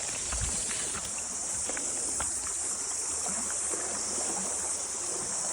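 Steady, high-pitched chorus of cicadas.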